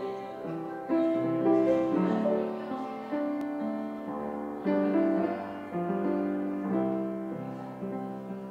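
Piano playing a slow, gentle piece: sustained chords with a melody on top, a new chord struck about once a second.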